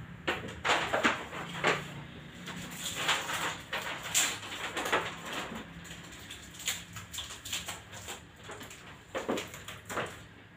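A large paper chart rustling and crackling in short, irregular bursts as it is handled and unrolled.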